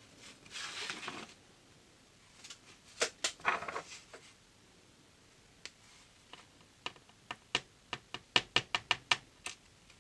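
Metal lock picks working in the keyway of a DOM System D cylinder: a short scrape, then scattered sharp clicks, and a quick run of about seven clicks near the end.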